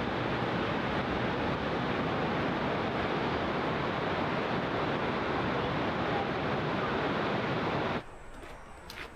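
Steady rushing of a large waterfall's falling water. Near the end it cuts to a much quieter background with a few footsteps on the trail.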